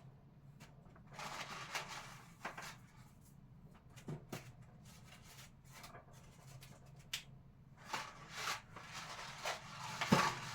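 Small packets rustling and being handled while they are packed into a kitchen cabinet, with scattered light clicks and knocks as items are set down and bump the shelf.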